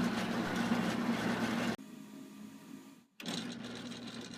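Converted band saw running, its electric motor and slowed-down belt-and-pulley drive giving a steady mechanical hum. The sound drops suddenly to a quieter level a little under two seconds in, breaks off briefly just after three seconds, then carries on more quietly.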